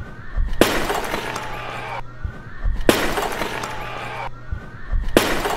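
A large terracotta clay jar thrown down and shattering on a hard stage floor, three times about two seconds apart. Each crash is followed by a second or so of shards scattering and rattling across the floor.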